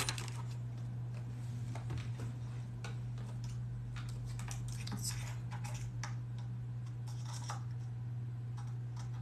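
Scattered small clicks and rattles of drill bits being handled and sorted through by hand, over a steady low hum.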